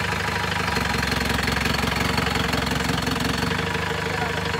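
Modified off-road jeep's engine idling steadily, a little stronger about a second in.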